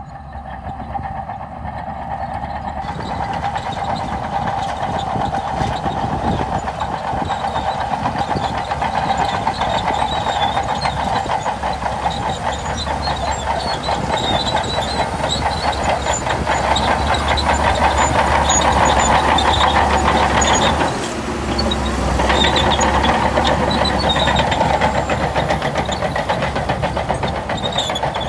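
Shantui DH17C2 crawler bulldozer working, its diesel engine running under load amid a steady clatter of steel tracks. The engine note drops briefly about three quarters of the way through, then picks up again.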